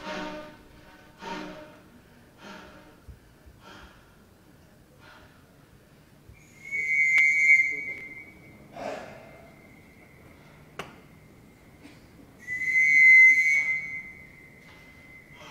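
Manipulated, live-mixed sound-art textures: a pitched struck sound repeats about once a second, each repeat fainter. Then two loud, high whistle-like tones are each held for about a second and a half, with a short rushing burst between them. The second tone trails on more quietly.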